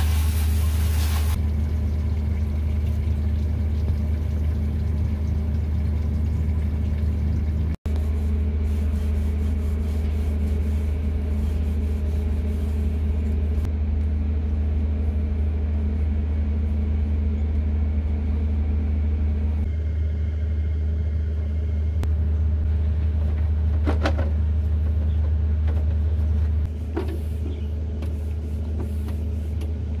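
Steady low machine hum. For the first second or so, water from a garden hose sprays onto the plastic air-conditioner cover. A few light knocks follow in the second half.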